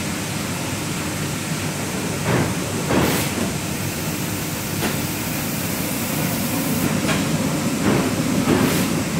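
Steady mechanical running noise of a Wohlenberg Quickbinder perfect-binding machine, with several short knocks and clunks scattered through it as its actuators move to a new job setting.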